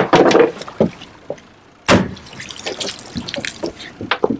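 A hooked tuna thrashing and splashing alongside the boat as it is gaffed, with one sharp, loud splash about two seconds in and smaller splashes around it.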